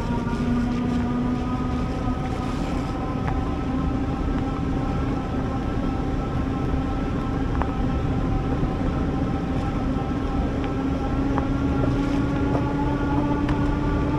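Electric bike motor whining steadily, its pitch creeping slowly upward through the stretch, over a constant low rumble.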